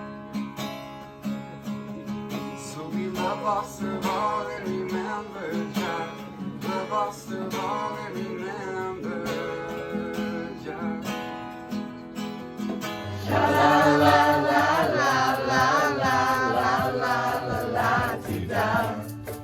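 A song with strummed acoustic guitar and singing, becoming louder and fuller about thirteen seconds in.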